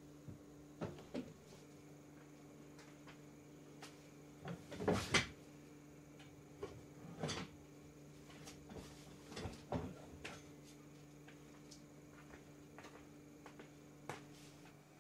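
Scattered light knocks and clicks of household objects being handled, over a steady low hum. The loudest knocks come in a quick cluster about five seconds in.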